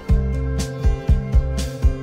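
Background music with held bass notes and a steady beat.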